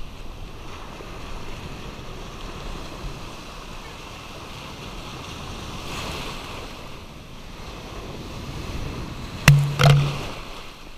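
Surf breaking and washing around a waist-deep wader, with wind on the microphone. Near the end, two sharp loud knocks come a fraction of a second apart as the water hits the camera.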